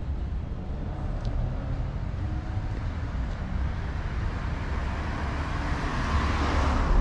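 A car passing on the street, its tyre and engine noise swelling to a peak near the end, over a steady low rumble of traffic.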